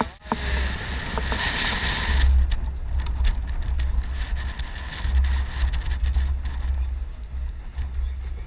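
Wind rumbling on a roof-mounted helmet camera's microphone as a Humvee drives along, over the vehicle's running and road noise with a few short rattles. A higher hiss eases off about two seconds in.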